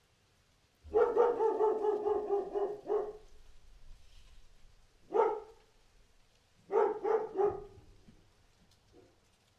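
A dog barking in bouts: a fast run of barks lasting about two seconds, then a single bark, then a quick double bark, and a faint short bark near the end.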